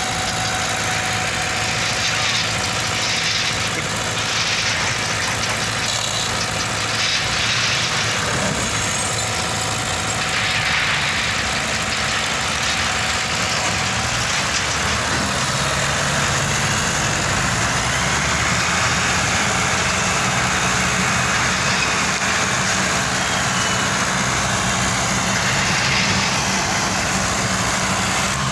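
Diesel engines of a Fiat 480 and a Fiat 640 tractor running steadily under load as they pull a loaded sugarcane trolley together, the engine note holding even and getting a little fuller about halfway through.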